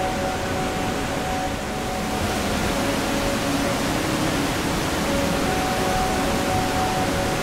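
Rushing white water of a stream's rapids, a steady wash of noise that grows brighter about two seconds in.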